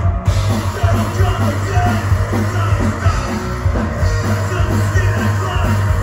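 A live punk-metal band playing loud with electric guitar, bass guitar and drum kit, and a singer's vocals over them.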